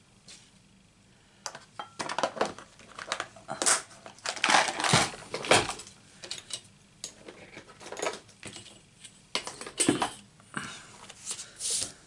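Paper and card stock being handled and slid about on a craft mat: irregular rustling, scraping and light taps, starting about a second and a half in.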